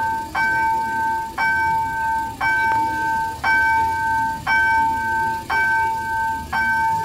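Level-crossing warning bell ringing, about one bright two-tone ding a second in a steady repeating rhythm. It signals that the crossing is closed to road traffic, with lights flashing and barriers down for an approaching train.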